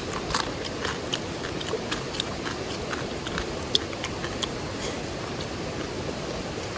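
Crunching and chewing of cooked crab being eaten: small, irregular clicks and cracks of shell over a steady background hiss.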